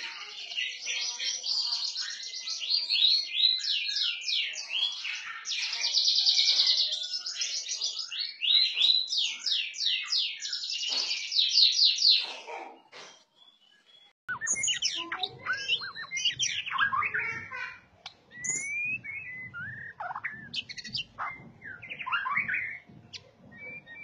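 A caged bird's song of fast, dense, high trills with no pause. After a cut about 14 seconds in, a different bird sings separate short whistles and chirps.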